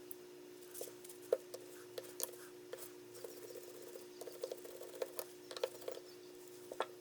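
Irregular light clicks and taps, a couple of dozen in all, typical of small tools and parts being handled during bench work, over a steady faint hum.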